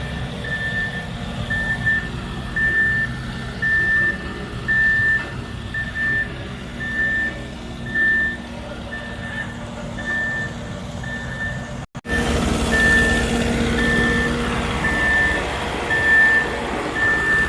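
A construction vehicle's reversing alarm beeping steadily about once a second over the low rumble of a heavy diesel engine. A brief break about twelve seconds in; after it the engine is louder while the beeping goes on.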